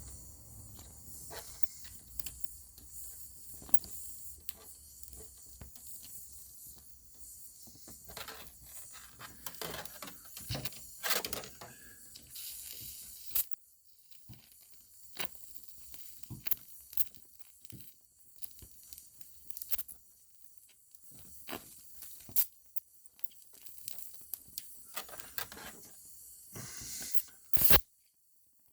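Oxy-acetylene torch hissing while gas-welding a sheet-metal patch, with irregular crackles and snaps from the weld puddle and filler rod.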